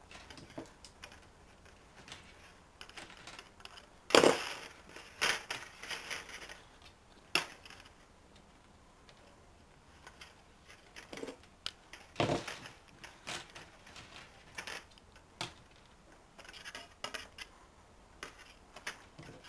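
Wire being bent and tied by hand and with pliers: scattered clicks, ticks and scrapes of metal wire, with two louder knocks about four and twelve seconds in.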